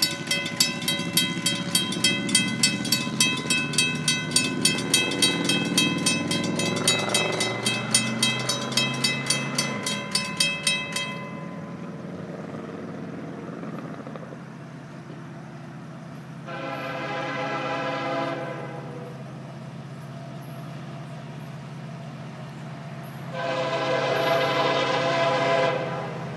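Grade-crossing warning bell ringing about twice a second, stopping partway through, while a diesel locomotive's engine rumble builds. Then the approaching locomotive's air horn sounds two long blasts, the second near the end and slightly longer.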